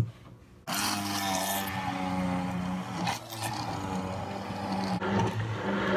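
Countertop blender switched on about half a second in and running steadily, its motor churning frozen açaí pulp, banana and water. A short click comes at the very start.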